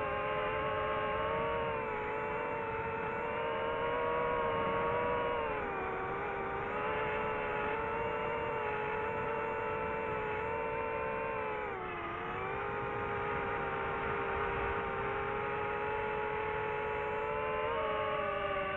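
DJI FPV drone's electric motors and propellers whining steadily in flight. The pitch dips briefly about six seconds in and again about twelve seconds in as the motors slow, then climbs near the end.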